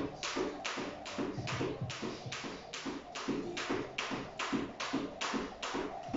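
Jump rope slapping a tiled floor with each jump, in an even rhythm of a little over two strikes a second.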